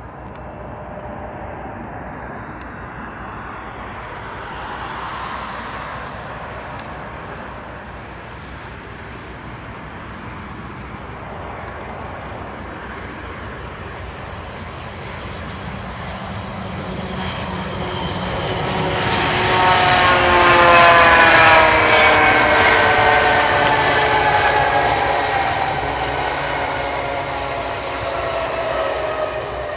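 Airbus A320 jet engines growing louder as the airliner comes in to land, peaking a little over two-thirds of the way through. Several whining engine tones fall in pitch as it passes, then the sound eases off as it rolls out on the runway.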